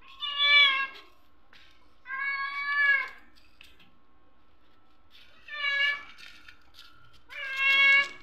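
Hungry orange-and-white stray cat meowing loudly four times, each meow lasting about a second, with the longest in the middle. The calls are begging for food.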